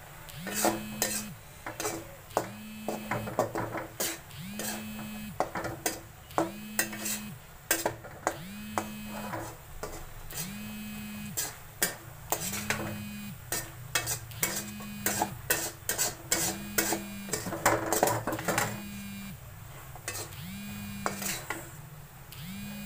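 A spatula scraping and clinking against the pan as spiced green chickpeas are stirred, in many short irregular strokes. Under it a low tone comes in briefly about every two seconds.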